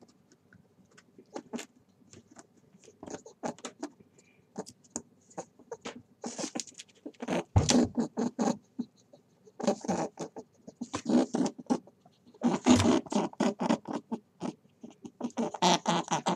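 A rabbit in dry hay making quick, crackly clicking and rustling sounds. The clicks are scattered at first, then come in dense bursts of a second or two.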